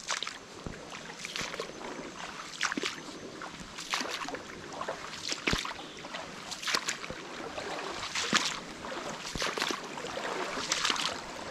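Footsteps wading through shallow creek water, a splash and slosh about every second and a bit, over the steady run of the creek.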